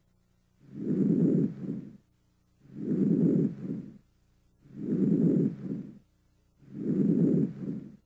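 Normal vesicular breath sounds heard on auscultation of the chest: four low-pitched breaths, about one every two seconds. Each is a longer inspiration fading into a short, quieter expiration, with a brief silence before the next.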